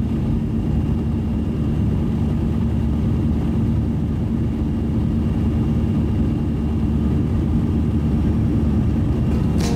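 Steady cabin noise of a jet airliner in flight: an even low drone of engines and airflow, with a faint steady hum running through it.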